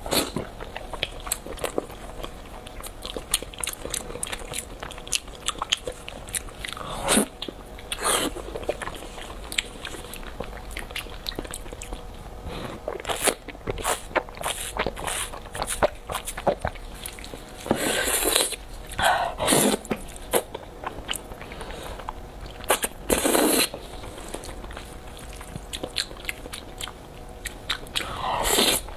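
Close-miked eating sounds: biting and chewing grilled eel and spicy instant noodles, a steady run of small wet mouth clicks. Several louder slurps and sucks stand out, the last of them a slurp of noodles near the end.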